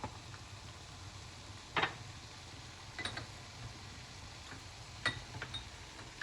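A few light clinks and knocks of a utensil against a cooking pot, the loudest about two seconds in, over a steady low hum.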